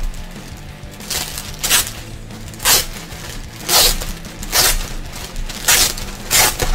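Clear plastic bag crinkling in short crackling bursts, roughly once a second, as a jacket is pulled out of it, over quiet background music.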